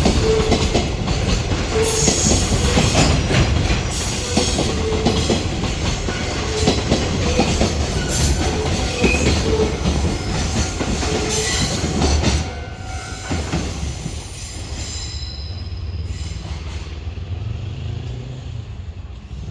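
Container freight wagons rolling past, wheels clattering over rail joints with short, repeated squeals. About twelve seconds in the clatter stops suddenly as the end of the train goes by, leaving a quieter, fading rumble.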